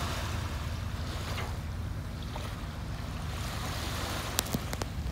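Boat engine running with a steady low rumble under the hiss of water washing along the hull and wind on the microphone. A few sharp clicks come close together near the end.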